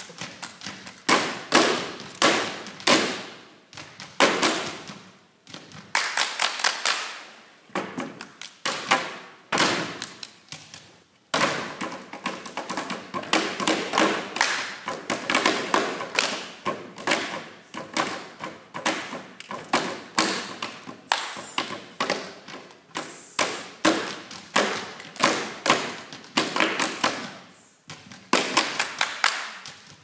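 A group performing hand percussion in unison: rhythmic slaps, taps and claps in repeated patterned phrases broken by short pauses.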